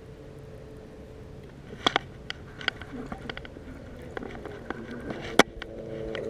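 Low steady hum of a bow-mounted electric trolling motor. From about two seconds in come scattered sharp clicks and knocks of the rod and baitcasting reel being handled, with one loud knock a little past five seconds.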